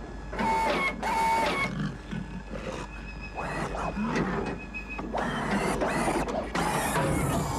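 Film sound effects of the ED-209 robot falling down stairs: whining servo motors and mechanical clanks mixed with squealing, growling cries, in a string of short stretches separated by brief gaps.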